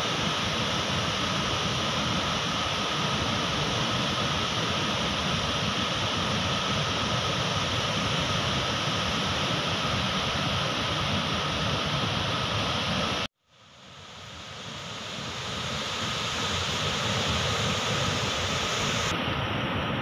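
Water rushing in white rapids over boulders at a waterfall: a steady, even rush. About two-thirds of the way through it cuts off abruptly, then swells back in over a couple of seconds.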